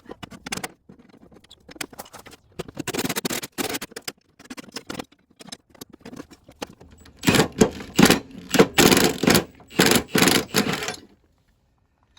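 Hand tools working on the mower deck's blade bolts to remove the blades: scattered metal clicks and scrapes, then about seven seconds in a quick run of loud, short bursts lasting a few seconds before it stops suddenly.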